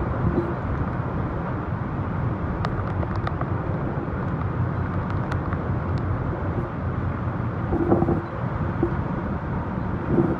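Typhoon wind blowing hard, a dense low rush buffeting the microphone without a break, with a few faint clicks in the middle and a short steady tone about eight seconds in.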